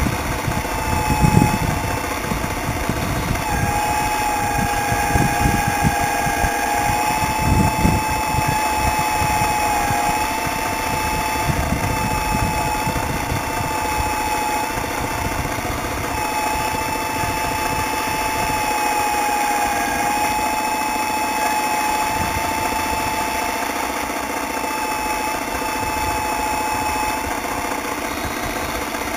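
Miniature radio-controlled hydraulic CAT 320 excavator's pump motor running with a steady whine, its pitch dipping slightly now and then as the arm and bucket dig. Low rumbling and knocks come through during the first several seconds.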